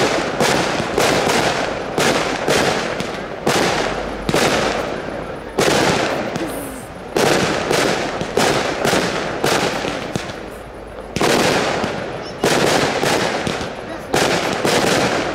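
Aerial firework shells bursting in quick succession, about one or two sharp bangs a second, each trailing off in a rolling echo, with a short lull around the middle.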